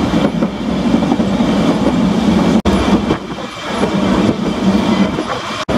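Vintage Manx Electric Railway tramcar running along the track, heard from on board: steady wheel-on-rail and running noise. The sound drops out abruptly twice, about two and a half seconds in and near the end.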